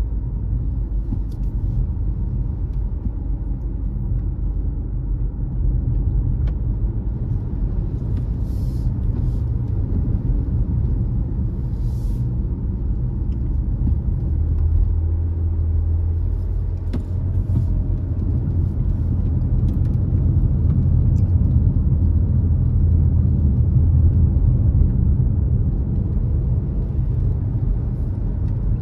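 Car driving along a road: a steady low rumble of engine and tyres, with a low hum that grows a little stronger past halfway.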